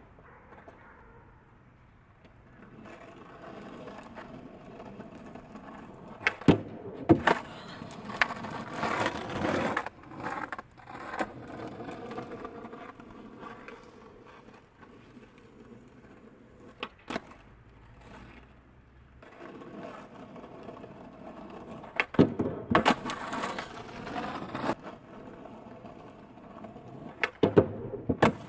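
Skateboard wheels rolling, with sharp clacks from the board popping and landing several times during passes at a manual pad.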